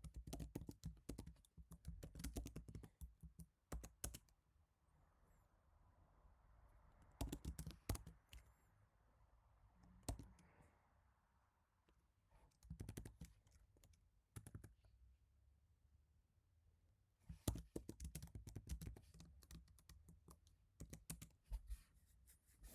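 Typing on a Happy Hacking Keyboard Professional Type-S with silenced Topre switches: soft keystrokes in bursts, separated by pauses of a few seconds.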